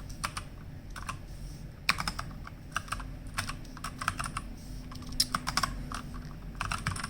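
Keys of a 60% mechanical gaming keyboard clicking as they are pressed, single presses and short clusters at an irregular pace, as key combinations are tapped to cycle the backlight modes.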